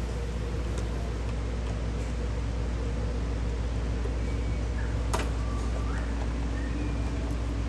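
Steady low mechanical hum, like a fan or ventilation running, with one sharp click about five seconds in.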